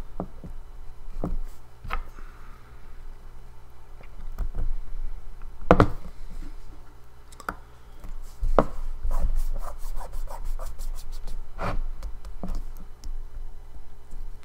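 Hands and a tool working at a hard drive's cover: irregular clicks and knocks with scraping and rubbing against the case.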